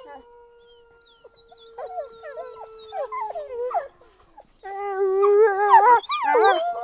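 Wolves howling. One long, steady howl holds for about four seconds, sinking slightly in pitch, with short yips and whines sliding over it. About two-thirds of the way in, a louder chorus of several wolves howling and yipping together takes over.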